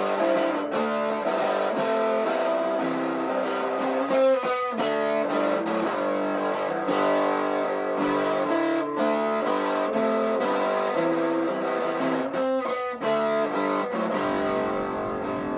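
Instrumental guitar passage, with chords plucked and strummed and no singing, dying away near the end.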